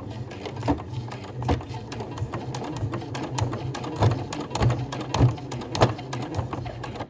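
Domestic sewing machine stitching a seam: a steady motor hum with irregular sharp clicks, cutting off abruptly near the end as the machine stops.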